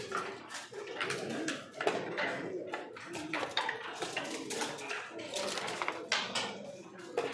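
Backgammon checkers clacking onto the board and dice rolling, a handful of sharp clicks at irregular intervals, over a continuous indistinct murmur of background sound.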